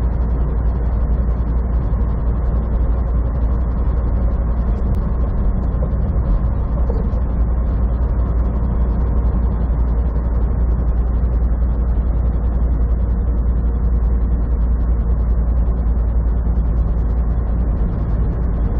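Semi truck cruising at highway speed, heard from inside the cab: a steady low drone of engine and road noise.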